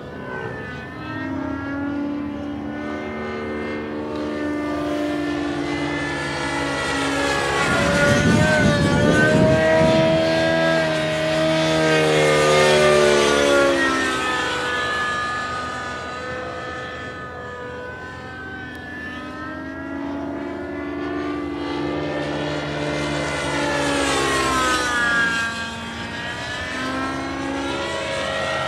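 JR Airskipper 90 radio-controlled helicopter flying aerobatics overhead. Its engine and rotor whine swings up and down in pitch as it turns and passes, and is loudest from about eight to fourteen seconds in.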